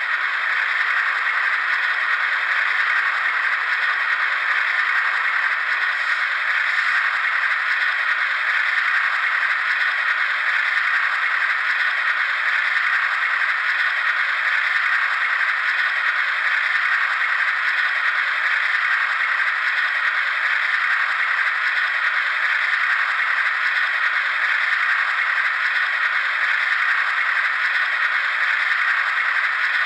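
Steady rattling, hissing sound from an HO-scale model locomotive's LokSound sound decoder, played through its small onboard speaker while the locomotive stands still. It is thin, with no deep bass, and does not change.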